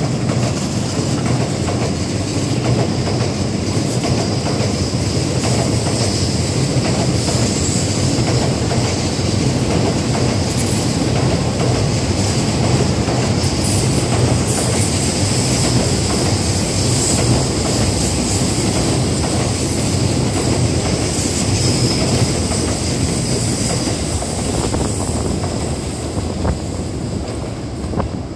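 Tokaido Shinkansen N700A trainset passing close by: a steady rumble of steel wheels on the rails with a constant high-pitched whine over it, easing slightly near the end as the train goes by.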